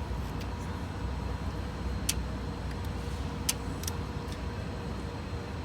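A few sharp metallic clicks from hand tools working on a diesel engine's glow plugs, spaced a second or more apart, over a steady low rumble and a faint steady hum.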